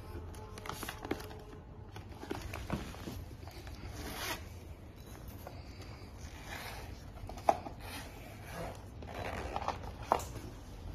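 The metal zipper of a laptop sleeve being drawn open around the case's edge in a series of rasping pulls, with handling rustle as the sleeve is lifted and turned. Two sharp clicks, about seven and a half and ten seconds in, are the loudest moments.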